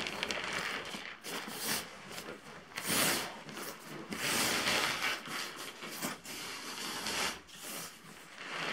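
Nylon fabric of a deflated Sea to Summit Comfort Plus insulated sleeping pad rustling and crinkling in a series of swishes as it is folded lengthwise and pressed flat by hand.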